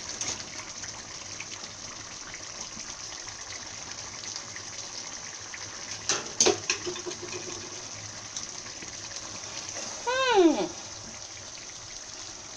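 Thick palm-oil soup sizzling and bubbling in a pot on a gas stove as it is stirred with a wooden spoon, with a few knocks of the spoon against the pot about six seconds in. Just after ten seconds a short exclamation falls in pitch, like a 'wow'.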